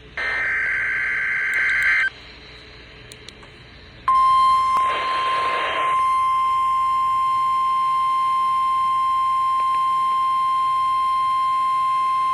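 Emergency alert broadcast tones: a two-second burst of warbling digital data tones (the SAME header that encodes the alert), then after a pause the steady single-pitch NOAA Weather Radio alert tone held for about nine seconds, with a brief hiss of static about five seconds in.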